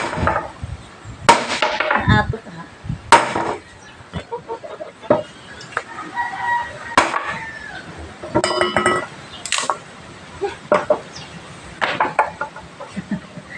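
Axe chopping firewood: several sharp strikes on wood, a second or more apart. A rooster crows in the background, one crow about eight seconds in.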